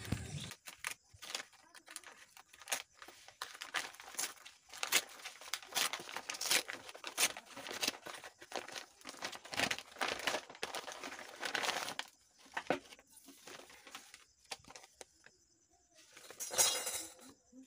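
A kraft paper mailer envelope being torn open and its paper crumpled and crinkled by hand, in irregular bursts of rustling and tearing. Near the end a loose paper sheet rustles loudly once.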